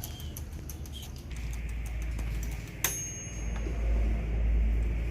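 Waffle maker's mechanical timer ticking quickly, about five ticks a second, for the first second and a half; then its bell rings once with a bright, lingering ding just under three seconds in, marking the end of the baking time. A low rumble is loudest in the last second.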